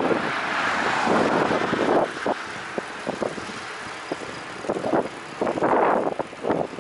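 Rushing wind and road noise while riding a bicycle, loudest in the first two seconds, then softer with scattered clicks and rattles.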